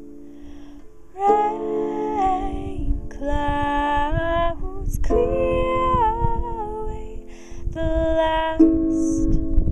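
Harp plucked by hand, its notes ringing, joined about a second in by a woman's wordless singing voice holding notes and sliding between them. Low gusty rumbling of wind on the microphone runs underneath.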